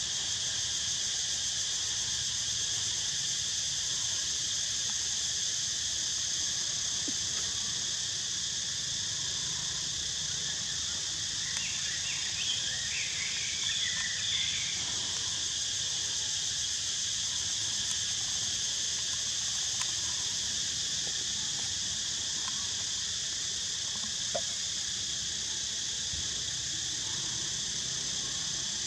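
Steady high-pitched drone of insects, unbroken throughout, with a few brief warbling chirps about twelve seconds in.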